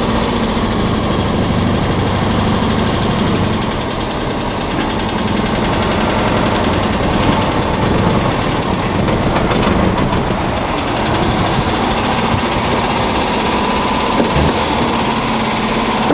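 Car engine running steadily with road noise, heard from inside the cabin.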